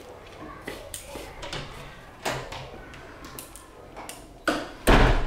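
A classroom door being handled: a few light knocks and clicks, then a loud, short thud near the end as the door shuts.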